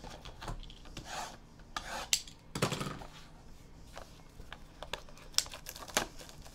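Trading cards and their packaging being handled: repeated rubbing and scraping swishes, with a few sharp clicks in the second half.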